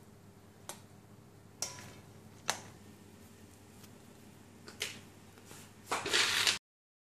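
A few sharp, light clicks and knocks of a plate and utensils being handled, spaced about a second apart. Near the end comes a short burst of rustling handling noise, and then the sound cuts off suddenly.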